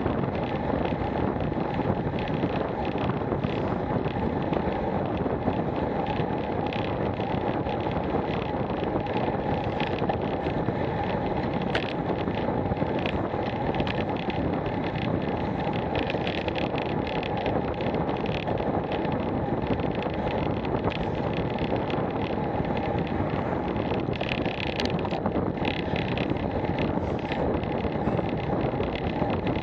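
Steady wind rush buffeting the Garmin VIRB action camera's microphone on a road bicycle riding at over 20 mph, with tyre noise from the tarmac underneath.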